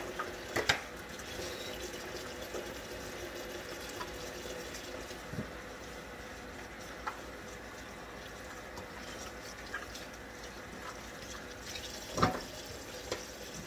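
Kitchen tap running into the sink during dishwashing, a steady water hiss, with a few clinks and knocks of dishes, the sharpest about twelve seconds in.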